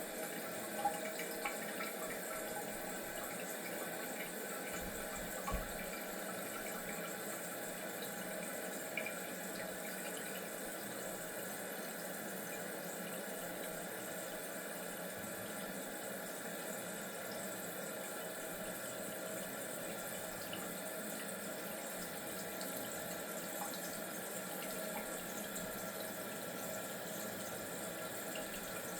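Water running steadily into a toilet tank through a newly installed fill valve as the tank refills, with a few light clicks in the first ten seconds.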